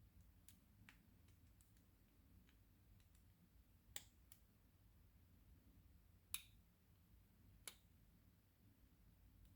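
Faint, scattered small clicks of a lock pick working the pin stacks of a Master Lock 410 lockout padlock, with three sharper clicks in the second half.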